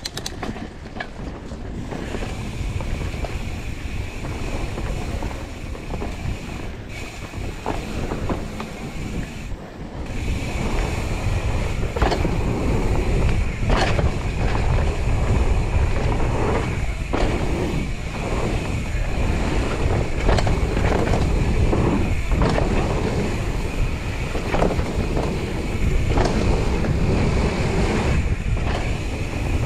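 Wind buffeting an action-camera microphone on a fast mountain-bike descent down a dirt trail, mixed with tyre noise and frequent knocks and rattles from the bike going over bumps. A steady high-pitched buzz sits under it, and the whole gets louder about ten seconds in.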